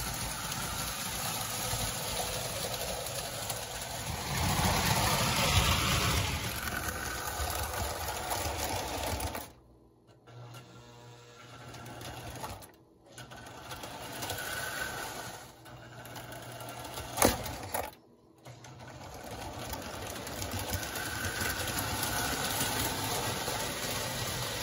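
Marx 999 O27 toy steam locomotive and freight cars running on tinplate track: a steady clattering whir of the small electric motor and wheels on the rails, loudest about five seconds in as the train passes close. The sound cuts out briefly a few times, and there is one sharp click past the middle.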